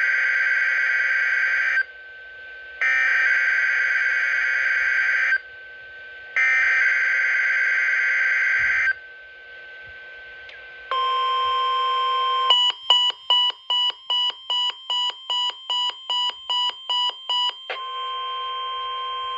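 NOAA Weather Radio SAME digital header for a Required Weekly Test: three short bursts of buzzing data warble. About eleven seconds in, the weather radios sound their alert: a steady beep, then rapid pulsed beeping about three times a second, then a steady tone again.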